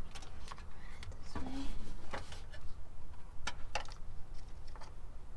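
Scattered light clicks and taps of hands handling a fuse-tap wire and the plastic fuse box in a truck's engine bay, about half a dozen spread over a few seconds, over a low steady rumble.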